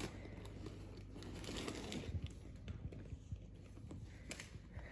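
Faint rustling and crinkling with scattered small clicks as a Loungefly bag is handled and looked over.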